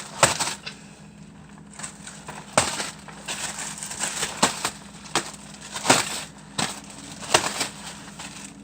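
Old food being cleared out of a fridge: repeated sharp knocks and crackles, roughly one a second, as items are handled and dropped into the trash.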